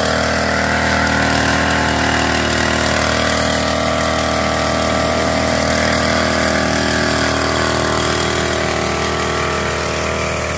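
Motorised knapsack power sprayer's small engine running steadily while herbicide mist is sprayed from its wand.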